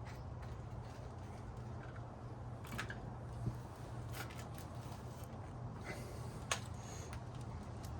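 A few light clicks and taps of small metal parts, such as bolts, being handled during motorcycle rear-wheel reassembly, over a steady low hum; the sharpest click comes about six and a half seconds in.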